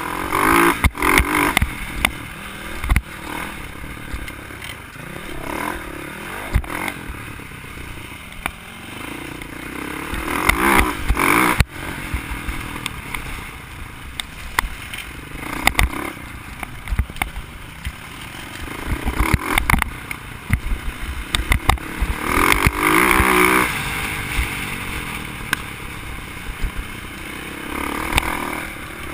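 Dirt bike engine being ridden along a bumpy trail, revving up and dropping back again and again as the throttle is worked, with frequent rattles and knocks from the bike bouncing over the rough ground.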